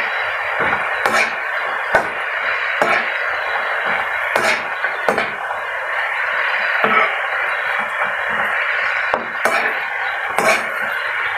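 Shredded cabbage and carrot sizzling in a hot pan while a metal spatula stirs them, with irregular knocks and scrapes of the spatula against the pan every second or so.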